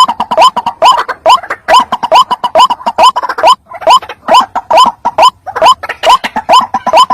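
White-breasted waterhen (ruak ruak) calling: a loud, rapid series of short notes that each rise sharply in pitch, repeating about three times a second. This is the bird's provoking call, used as a lure to bring rivals and mates in.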